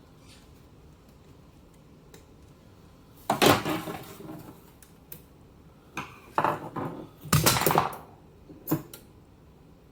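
Irregular bursts of clattering and crackle from the Automatic Electric Type 90 telephone under test. The loudest is a second-long burst about three and a half seconds in, with more around seven seconds and a short click near the end.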